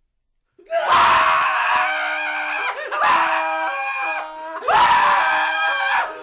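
Two men screaming together in shock, in three long screams that start about half a second in.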